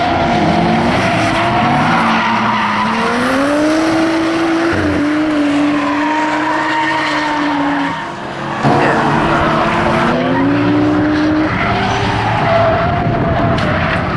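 Drift car sliding sideways under power, its engine revving up and down with the throttle while the rear tyres squeal and screech as they spin to smoke. The sound dips briefly about eight seconds in and comes back abruptly.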